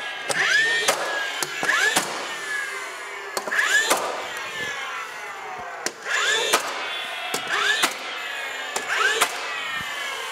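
DeWalt cordless 15-gauge finish nailer firing 2.5 inch nails through wood window casing into the framing, several shots spaced a second or more apart. Each shot is a sharp snap, with a short rising whine as the motor spins up before it and a whine that slowly falls in pitch after it.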